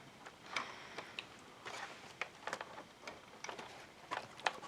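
Faint, scattered clicks and light taps of a laptop's plastic parts being handled and worked loose during disassembly.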